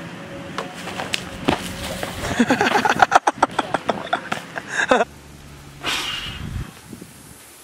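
A group of voices whooping and shouting, with several sharp clicks and knocks, for a few seconds mid-way. About five seconds in, this cuts off abruptly to a quiet, steady low hum.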